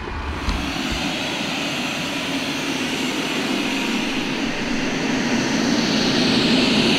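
Eufy RoboVac X8 robot vacuum running with its twin suction turbines on, a steady fan noise as it drives across a hardwood floor vacuuming up pet hair. The noise grows a little louder toward the end.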